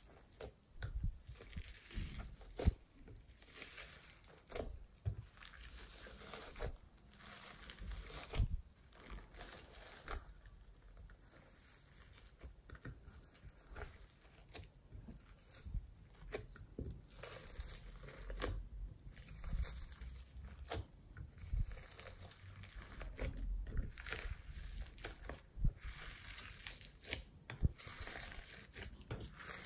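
Glossy slime being squished, folded and stretched by hand through a layer of foam beads, giving irregular clicks and crackles with short sticky squelches.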